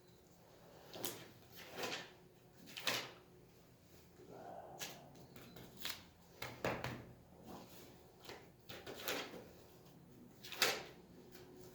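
A series of short, sharp knocks, clicks and rustles of objects being handled, irregularly spaced several seconds apart, the loudest near the end.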